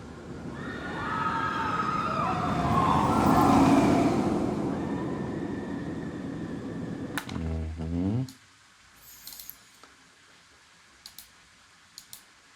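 Amusement-park ride cars (a roller-coaster train) passing by, swelling to a peak and fading, with high squealing tones gliding over the rumble. About seven seconds in, a low tone falls in pitch for about a second and stops abruptly. A few faint clicks follow.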